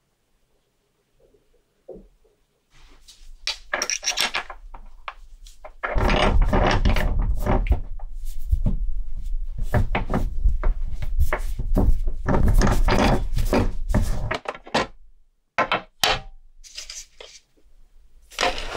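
Irregular rubbing and scraping strokes on a watch part during hand polishing or abrading work. The strokes come in a dense, loud run from about six seconds in to near the end, then break into a few separate scrapes.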